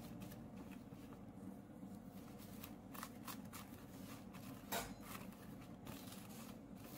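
Faint gritty rustling and scraping of granulated sugar as fried twisted doughnuts are rolled through it on a metal platter, with a few short scrapes, the clearest just before the five-second mark. A low steady hum runs underneath.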